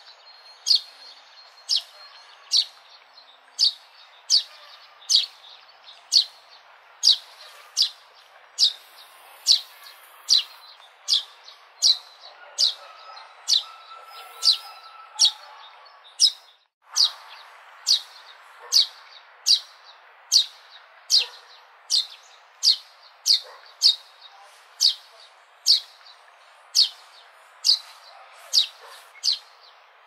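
A sparrow chirping over and over, one short sharp chirp a little more than once a second, over faint background noise. The sound drops out for an instant about 17 seconds in.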